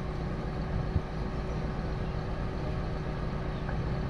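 Suzuki APV pickup's engine running steadily at low revs, with a single sharp knock about a second in.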